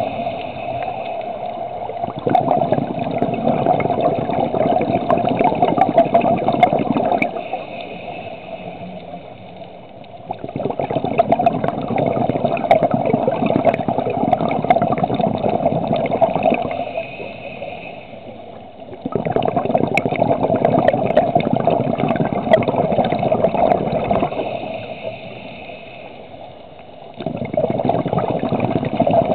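Scuba diver's breathing underwater: a loud rush of exhaled bubbles lasting about five seconds, alternating with a quieter hiss from the regulator on each inhale, in a regular cycle every eight or nine seconds.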